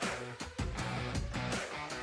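Instrumental music with guitar over a steady drum beat.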